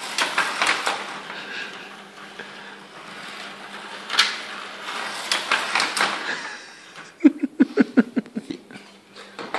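Small electric slot car running on a plastic slot-car track, a whirring rattle that swells and fades as the car goes round. About seven seconds in comes a quick run of knocks.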